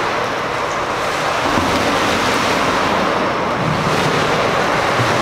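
Steady rushing and splashing of water in an indoor swimming pool as a swimmer swims laps.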